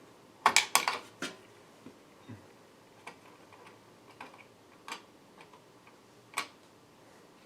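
Sharp clicks and taps of small computer parts being handled: a quick cluster of loud clicks about half a second in, then single fainter clicks every second or two.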